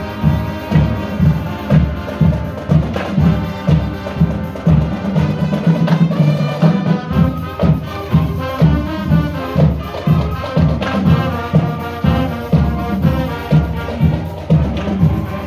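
Marching band playing: trumpets, saxophones and sousaphones carry a melody over drums beating a steady rhythm of about two strokes a second.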